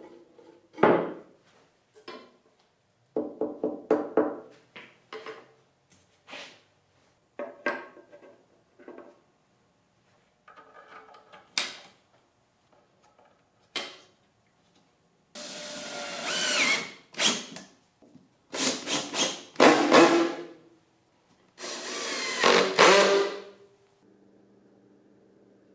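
A drill driving screws into the underside of a wooden table in three runs of about two seconds each, the motor's pitch gliding up and down, after a series of light knocks and clinks from parts and hardware being handled.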